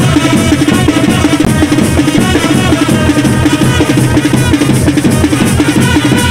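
Loud, fast festival drumming from a procession band: dense, even drum strokes in a steady driving beat, with a faint wavering high tune over it.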